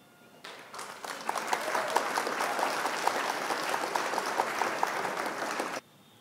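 Applause sound effect: a crowd clapping. It builds up over about a second, holds steady, and cuts off abruptly near the end.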